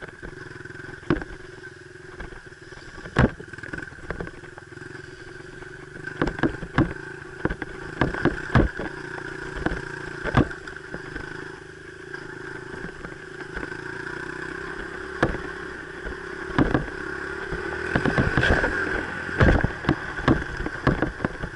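Dirt bike engine running at a fairly steady speed on a trail ride, with frequent sharp knocks and clatters over it.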